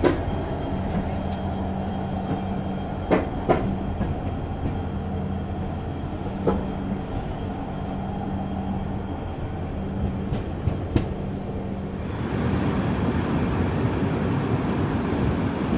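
Passenger train running on rails, heard from a coach doorway: a steady low rumble with a few sharp clacks of the wheels, and a louder rushing noise from about twelve seconds in.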